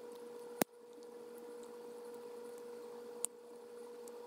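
Hand cutters snipping the chrome engine piece of a toy car: a sharp snap about half a second in and a lighter click about three seconds in, over a steady hum.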